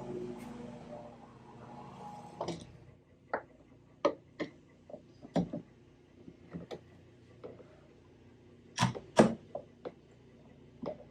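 Irregular sharp clicks and knocks from F-clamps and tools being handled and set against a vintage archtop guitar body during glue-up, with a loud double knock about nine seconds in. Faint steady tones die away in the first two seconds.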